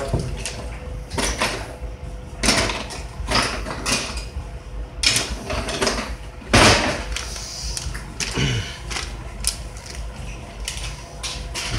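Irregular knocks and clatters of kitchen utensils being handled while a spatula is fetched, over a steady low hum.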